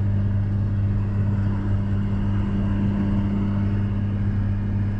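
Inside the cab of a 1992 Dodge D250 with its Cummins turbo-diesel inline-six, cruising at about 65 mph: a steady low engine drone with even tire and road noise.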